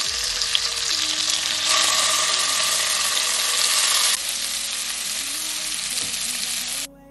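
Chicken and vegetable skewers sizzling in hot butter and olive oil in a frying pan, a steady frying hiss. It gets louder about two seconds in, drops back about four seconds in, and cuts off suddenly near the end.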